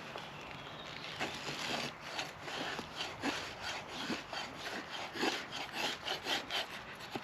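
A steel folding knife blade (Gerber Freeman) scraping repeatedly along a stick of wood, about two rasping strokes a second, starting about a second in.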